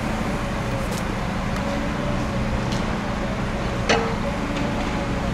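Steady low rumble with a faint steady hum from a train standing at the platform with its engines running. One sharp clack about four seconds in.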